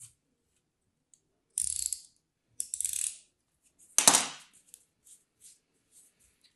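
Crumbly kinetic sand crunching as it is cut and crushed by hand: two short crunches, then the loudest crunch about four seconds in as a handful is crumbled onto the pile, followed by faint crackles.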